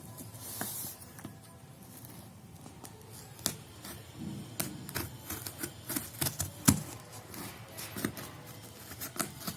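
A phone's retail box and its packaging being handled and opened by hand: irregular sharp clicks and taps with short rustles, busier in the second half.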